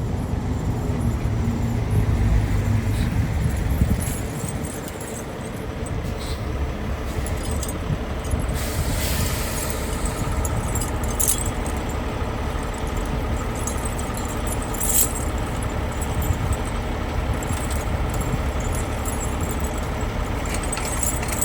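A logging truck's engine running steadily with a low rumble. It eases off for a moment about four seconds in, then pulls on. A few light clicks and rattles sound over it.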